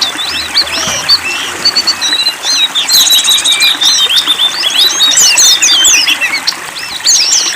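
A dense chorus of small songbirds chirping and twittering, many quick rising and falling calls overlapping, over a faint steady hiss of water.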